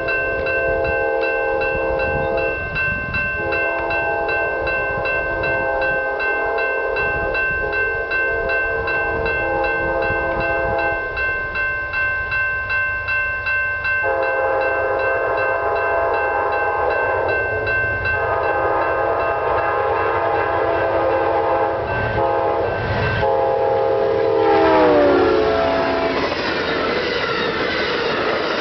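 Amtrak GE P42DC locomotives sounding their horn in a series of long blasts for a grade crossing, over a steady rapid ringing like a crossing bell. Near the end the horn's pitch drops as the locomotives pass close by. This gives way to the rumble and clatter of Superliner passenger cars rolling past.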